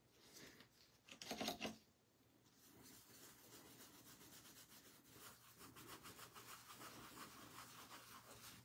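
Faint, quick back-and-forth rubbing of a wipe across a metal nail-stamping plate as it is wiped clean, after a short louder handling noise about a second in.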